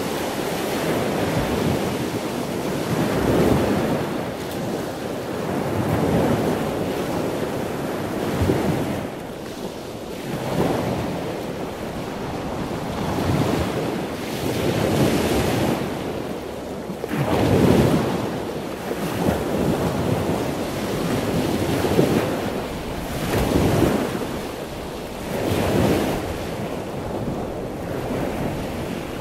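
A rushing noise that swells and fades about every two seconds.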